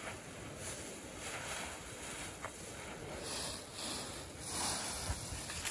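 Dry fallen leaves rustling and crunching as a border collie burrows and bounds through a deep leaf pile, coming in uneven waves that grow louder in the second half.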